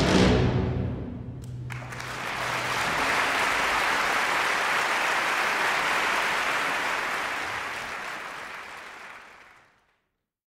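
The orchestra's last sound dies away and audience applause takes over, steady and dense, then fades out shortly before the end.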